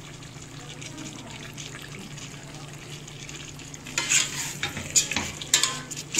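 Metal ladle stirring chicken curry in a stainless steel pot: a steady low hiss at first, then from about four seconds in a run of scrapes and clinks of the ladle against the pot.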